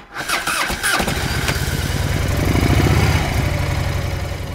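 Motorcycle engine being started: a short burst of cranking, then it catches about a second in, revs up briefly and settles back toward idle.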